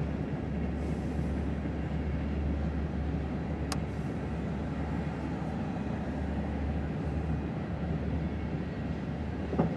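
Coal train hopper cars rolling past: a steady low rumble and clatter of steel wheels on the rails. A single brief sharp tick about a third of the way in, and a louder clank just before the end.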